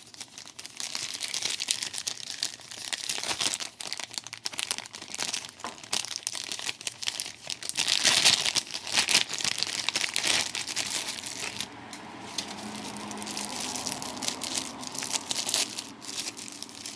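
Crinkly packaging being handled and opened: a continuous run of crackles and rustles, loudest about halfway through.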